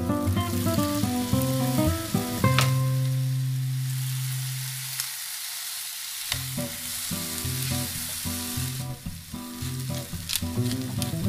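Diced tomato and scrambled egg sizzling and frying in an oiled pan while a wooden spatula stirs them, with a few sharp knocks of the spatula against the pan. Soft guitar music plays underneath, dropping out for a moment about halfway through.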